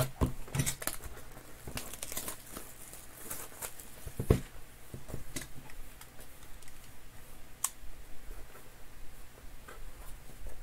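Hands handling a cardboard trading-card box: scattered taps, knocks and crinkling, with one louder knock about four seconds in.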